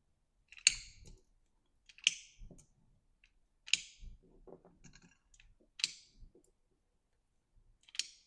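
Launcher balls dropped one at a time into the Beeman BP.50's magazine, each landing with a sharp click, five in all about two seconds apart, with faint handling rattles between.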